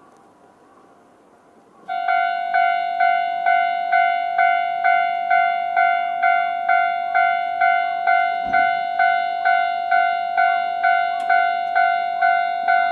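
Japanese railway level-crossing warning bell starting up about two seconds in and ringing a steady, evenly repeated 'kan-kan' at a little over two strikes a second. It signals that a train is approaching and the barriers are coming down.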